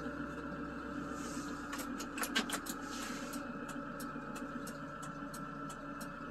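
Kia Bongo's diesel engine idling steadily, heard from inside the cab. A quick run of light clicks comes about two seconds in, and faint regular ticking, about two or three a second, follows.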